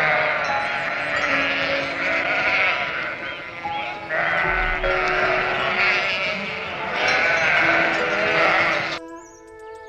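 Many animal calls overlapping in a dense chorus, in three long stretches, over soft background music; the calls stop near the end.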